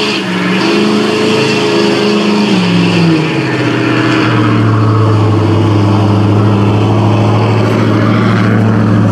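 Ford Super Duty pickup's engine running hard while dragging a weight-transfer pulling sled. Its pitch falls about three seconds in, then holds a steady low drone.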